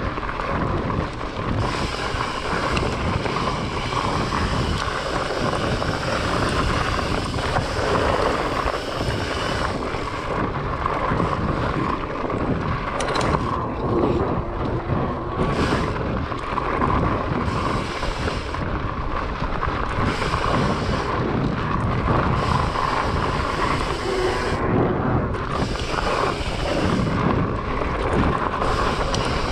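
Trek Farley 9.6 fatbike riding fast over dirt singletrack: wind buffeting the camera microphone over a steady rumble and rattle of the fat tyres and bike on the trail.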